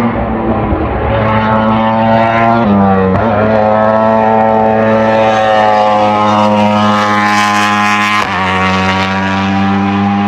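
Hillclimb racing engine at full throttle, its pitch climbing slowly in each gear and broken by two quick upshifts, about two and a half seconds in and again about eight seconds in.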